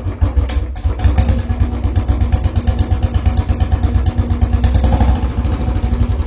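Royal Enfield motorcycle engine running at a steady speed, with a rapid, even exhaust beat.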